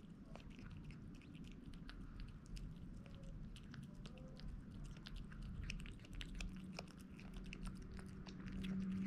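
Kitten chewing and smacking wet canned cat food, with quick irregular wet clicks several times a second. From about six seconds in a low steady hum joins in and grows louder near the end.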